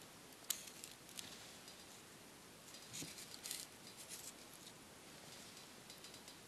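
Faint, scattered crackles and clicks from burning bark tinder being set into a stone fire ring and nudged with sticks. There is one sharper click about half a second in and a cluster of crackles around the middle.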